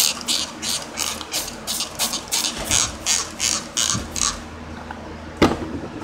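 Fast, even scrubbing strokes, about three or four a second, stopping a little over four seconds in; a single sharp knock near the end.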